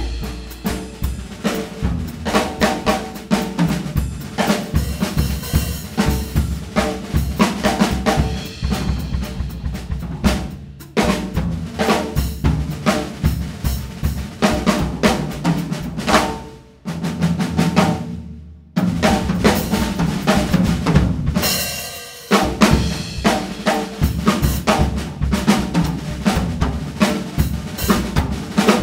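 Jazz drum kit solo: bass drum, snare and toms played in quick, busy patterns with cymbals. About two-thirds of the way through it drops briefly to a softer, low-pitched passage, then comes back in with a cymbal crash.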